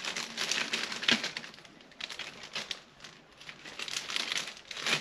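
Small clear plastic bag crinkling as it is handled and opened, in three bursts of rustling with a sharp crackle about a second in.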